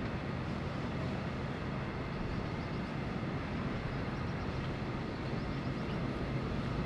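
HO scale model diesel shunting locomotive running slowly. It makes a steady, low-pitched running noise over a background hiss.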